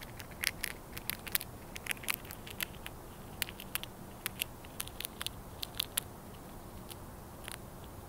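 Squirrel gnawing and cracking a nut shell: an irregular run of sharp crackling clicks that stops about six seconds in.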